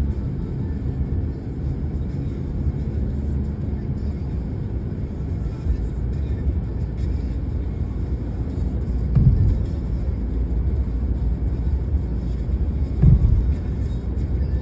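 Car driving on the road: a steady low rumble of road and engine noise, with two brief thumps, about nine and thirteen seconds in.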